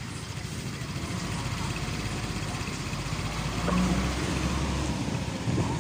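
Road traffic noise: a vehicle's engine running and growing gradually louder as a van approaches along the street.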